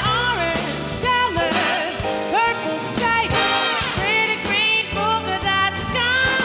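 Live swing band with brass and saxophones playing, with a woman singing into a microphone over it.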